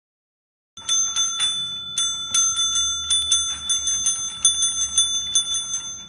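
Counter service bell (desk bell) rung over and over by a puppy pressing on it: rapid, uneven dings, each one ringing on, starting about a second in and stopping just before the end.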